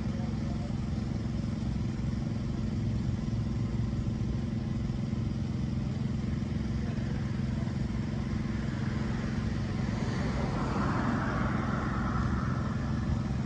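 Street traffic: a steady low engine hum throughout, and a car passing about ten seconds in, its tyre noise swelling and fading.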